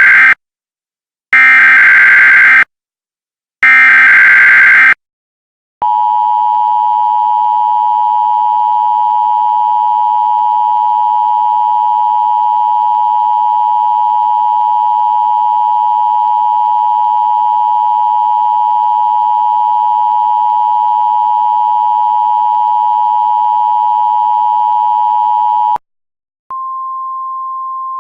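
Emergency Alert System test signal. Three roughly one-second bursts of SAME header data screech, the first already under way at the start. A steady two-tone EAS attention signal follows for about twenty seconds and cuts off, and after a short gap a single quieter steady tone begins.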